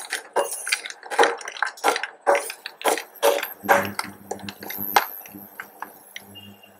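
A spatula scraping and knocking against a frying pan as cashews are stirred in ghee, about three strokes a second, growing fainter near the end. A faint low hum comes in about halfway.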